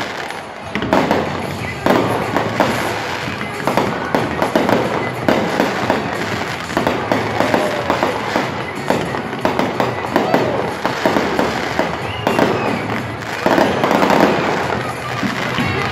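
Fireworks show: a dense, continuous barrage of bangs and crackling shells, one burst after another with no pause.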